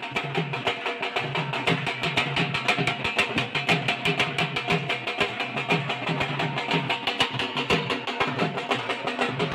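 Several dhol drums beaten together in a fast, steady rhythm.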